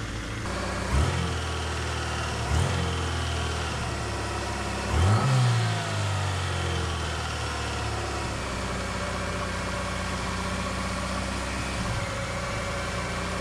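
Fiat Panda 4x4's small carburettor petrol engine running again after being flooded, while its carburettor is being adjusted. It is blipped briefly three times in the first five seconds, then settles into a steady idle.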